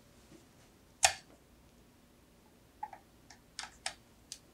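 Clicks from a USB connector being unplugged and plugged back in to power cycle the device: one sharp click about a second in, then a run of lighter clicks and taps near the end.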